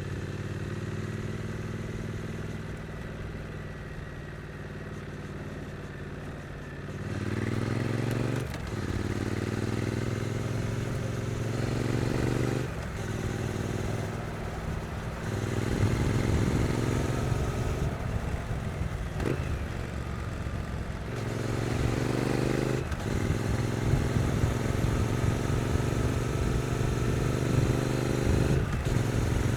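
Stock Triumph Street Twin 900 cc parallel-twin engine running steadily at low revs, then pulling away about a third of the way in. It revs up through the gears, with several brief dips in sound at the upshifts.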